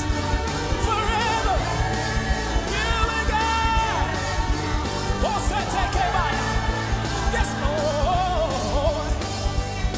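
Live gospel praise song: a large choir singing with a band over a steady beat.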